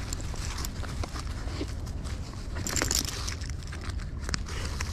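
Wind rumbling on a body-mounted camera's microphone, with scattered clicks and rustles of gloves, leash and feet in the snow; a louder rustle comes about three seconds in.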